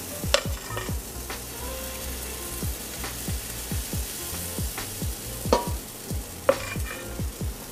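Pancake batter sizzling in a hot oiled pan, with a metal spoon scraping and clinking against a stainless steel mixing bowl as batter is scooped, including three sharp clinks. Background music with a low, steady beat runs underneath.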